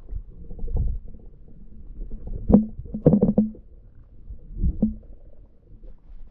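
Muffled underwater rumbling with a few dull knocks, loudest about two and a half and three seconds in and again near five seconds, as heard through a camera's waterproof housing in the water.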